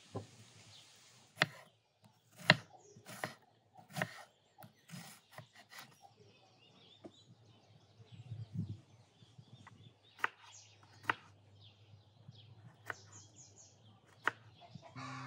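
Kitchen knife cutting an onion on a wooden cutting board: separate sharp knocks of the blade hitting the board, spaced unevenly about a second or more apart. Birds chirp faintly in the background.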